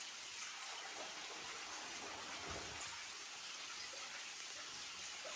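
Quiet underground ambience: a faint, steady hiss with scattered small ticks, like water dripping, and one soft low thud about two and a half seconds in.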